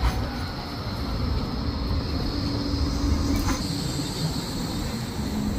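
Blackpool Flexity 2 tram pulling into a stop: its wheels rolling on the rails with a steady rumble, a low hum and a faint high whine, and a single click about three and a half seconds in.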